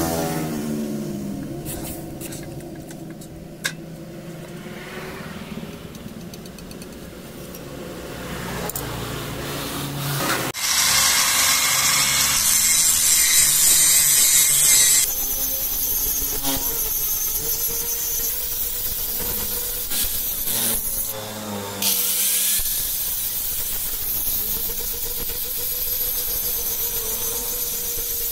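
Electric angle grinder grinding a steel sickle blade. It starts suddenly about a third of the way in, is loudest for the first few seconds, then settles into steadier grinding with a hum. Before it there is a quieter low hum with a few clicks.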